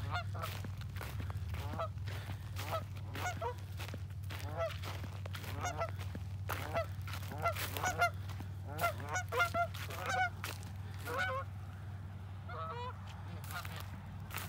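Canada geese honking in a repeated series of calls, coming quicker and louder for a few seconds past the middle before tailing off near the end.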